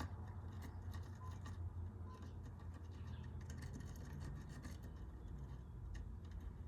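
Faint, irregular scratching and small clicks as a soldering iron works over the bare pads of an Xbox One controller board, clearing off leftover solder from the removed joystick, over a low steady hum.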